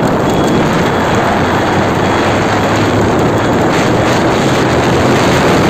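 Steady, loud rush of wind on the microphone and road noise from a moving vehicle.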